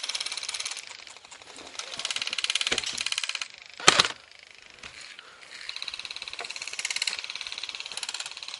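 Airsoft electric guns firing full-auto in three long bursts of rapid, even clicking, with a single sharp, loud crack about four seconds in, which is likely a single gun shot.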